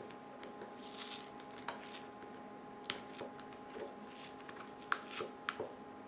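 Scattered light clicks, taps and rustles of fingers handling small iPod parts and a replacement hard drive, with a few sharper clicks in the second half.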